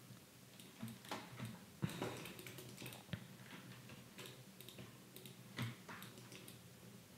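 Computer keyboard keys and mouse buttons clicked at an irregular pace, giving faint, scattered clicks, with a louder one about two seconds in and another about five and a half seconds in.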